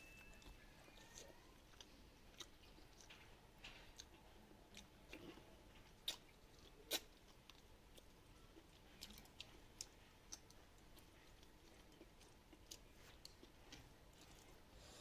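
Quiet chewing of rice and chicken curry, with scattered small mouth clicks and smacks; two sharper clicks about six and seven seconds in.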